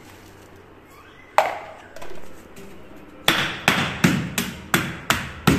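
Steady repeated blows pounding a cloth-wrapped bundle on a wooden board, about three a second, starting a little past halfway, after a single sharp knock.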